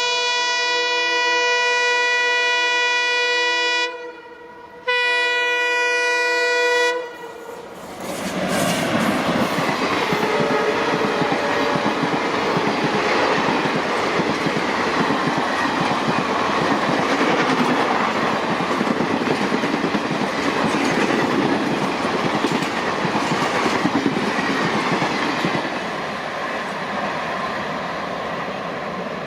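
ALCo WDM-3A diesel locomotive's horn blowing a long, steady blast. It breaks off about four seconds in, then sounds again until about seven seconds in. The train then runs past at speed as a loud rushing noise with wheels clattering over the rail joints, easing off near the end.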